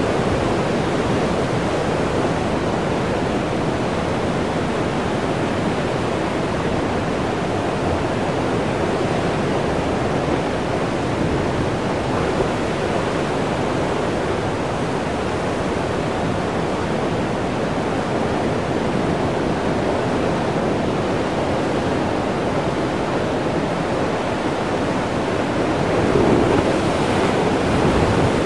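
Heavy ocean surf crashing and churning over a rocky shoreline as a steady rush, swelling a little near the end as a wave surges in and the sea spout blows.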